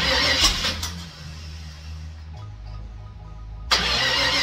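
Car engine running on a newly installed 600 cfm carburetor, idling steadily and revved twice: a short blip of about a second at the start and a longer one near the end. This is the first run on the new carburetor, with its adjustment being checked.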